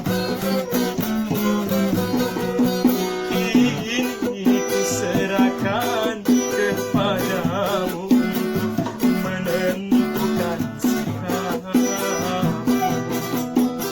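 Instrumental break of a song played on acoustic plucked strings, guitar among them, with a wavering melody line over the accompaniment.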